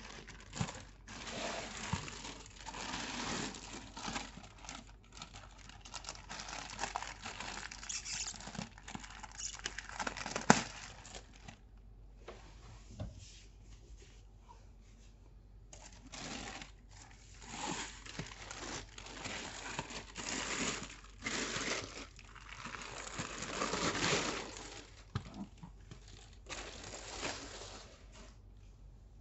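Thin clear plastic bag crinkling and rustling in irregular bursts as it is pulled off a leather handbag, with a sharp click about ten seconds in and a quieter pause a little after.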